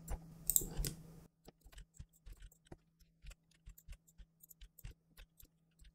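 Faint, irregular clicks of a computer keyboard and mouse in use, about three or four a second, over a faint steady hum.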